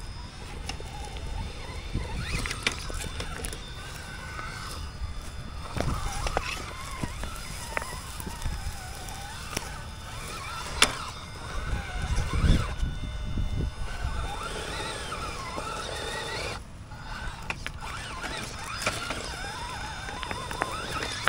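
Radio-controlled Element RC Gatekeeper scale rock crawler's electric motor and gearbox whining, rising and falling in pitch with the throttle as it climbs. Scattered knocks, the loudest about eleven seconds in.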